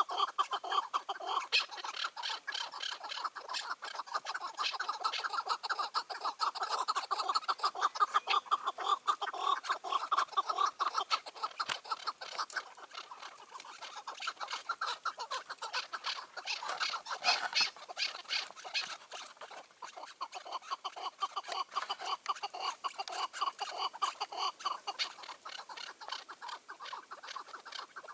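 Chukar partridges calling: a fast, unbroken run of short repeated notes, louder in the first half.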